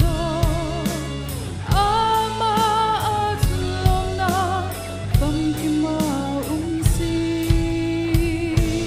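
A woman singing a Christian song in Hmar into a microphone over a backing track with a steady drum beat, her notes wavering with vibrato. Near the end she holds one long note.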